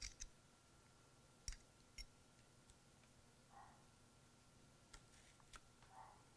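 Near silence over a faint steady hum, broken by about five faint clicks and light taps of metal spoons as mushroom-and-egg filling is spooned into crisp mini phyllo cups.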